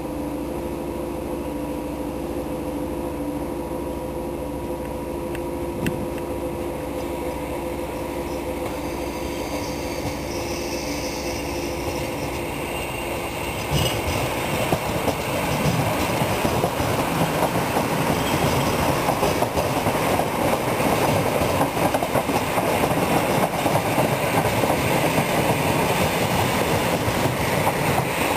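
Trains passing on the track: first a steady rumble with several held tones, then, about halfway through, a suddenly louder rumble and rapid wheel clatter as a passenger electric multiple unit goes by close.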